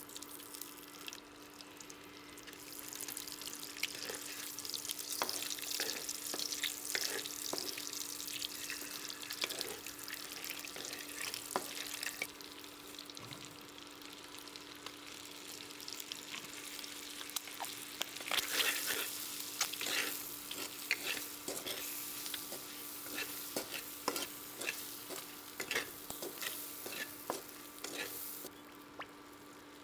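Halved boiled eggs sizzling and crackling in hot oil in an iron karahi, with a spatula stirring and scraping them through the pan. The sizzle grows louder a little past halfway.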